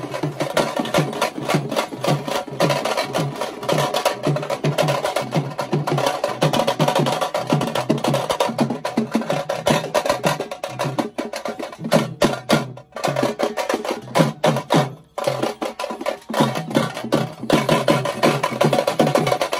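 A band of shoulder-slung drums struck with sticks, beating a fast, driving rhythm, with a couple of brief breaks about two thirds of the way through.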